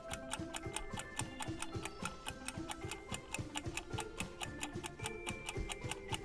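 Countdown-timer sound effect: a clock ticking quickly and evenly, several ticks a second, over a quiet background tune with a stepping melody.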